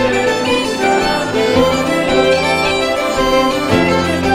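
Fiddle playing a traditional tune in a quick, unbroken string of notes over a steady low accompanying tone.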